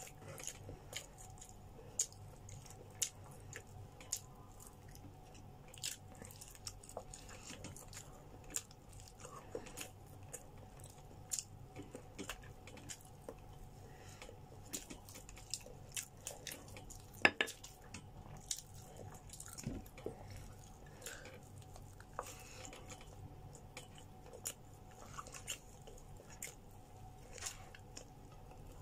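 A person chewing and biting grilled chicken close to the microphone, with many irregular wet mouth clicks and smacks and one sharper click about 17 seconds in, over a faint steady hum.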